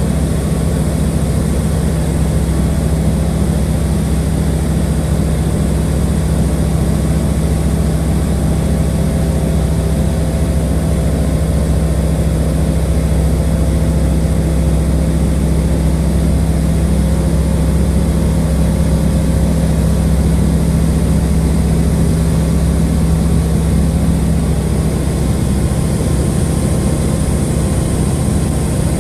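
Light aircraft's propeller engine droning steadily, heard from inside the cabin.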